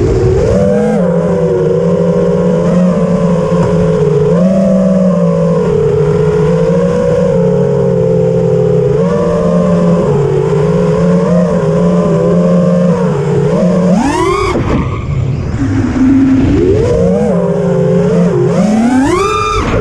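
FPV racing quadcopter's motors and propellers whining, heard close up from on board. The pitch holds fairly steady with small wobbles, then sweeps sharply upward twice as the throttle is punched, about two-thirds of the way through and again near the end.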